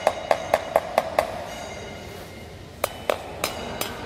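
A thin rod tapping on ceramic floor tiles in two quick runs of about four or five taps a second, with a pause between them. Each tap gives a hollow, drummy knock, the sign of air voids under tiles whose mortar bed was not laid fully.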